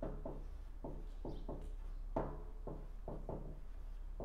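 Marker pen writing on poster board: a run of short, irregular strokes, a few each second, as words are written out by hand.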